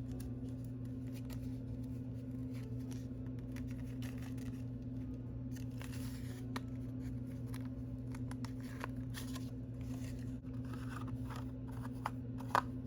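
Small packaging being handled: scattered light rustles and clicks, with a sharper double click near the end, over a steady low electrical hum.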